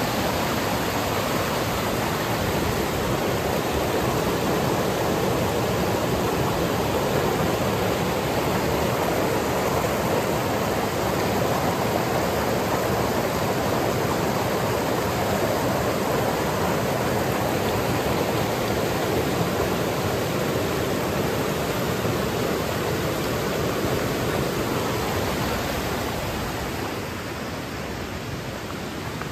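A river rushing over rocks: a steady, loud wash of moving water that grows a little quieter near the end.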